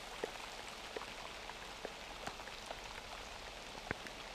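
Steady rain falling on wet ground, with single drops ticking sharply here and there.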